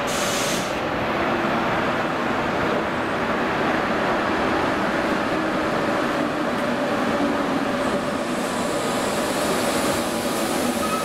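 ČD class 151 electric locomotive hauling a passenger train slowly along the platform: steady rumble of wheels on rail with a faint running hum, growing a higher hiss near the end as the locomotive passes close by.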